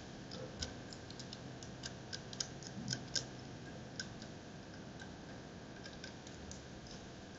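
Faint, irregular small clicks and ticks as the yellow tip guard and spray tip of an airless paint spray gun are handled and fitted together. The clicks are most frequent in the first half and thin out later.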